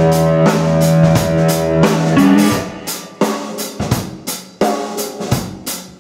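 Live rock band playing with drums, bass guitar and electric guitar. A sustained chord rides over a steady drum beat, then about two seconds in the band drops back to a sparse groove of snare and rimshot hits with bass.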